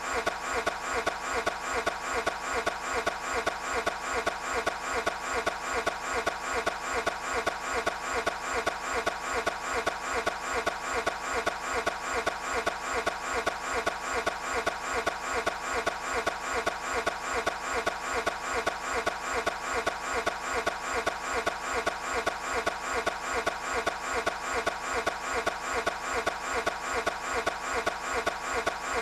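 A Toyota 86's engine cranking on the starter without catching: an even, rhythmic churn of about three pulses a second that goes on unchanged. The engine will not start.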